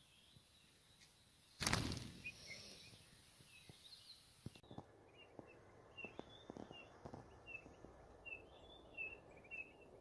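A sudden loud rustle about a second and a half in, fading over the next few seconds. Then, from about halfway, a flock of pine grosbeaks calls with short, high chirped notes about two a second, over scattered soft low knocks.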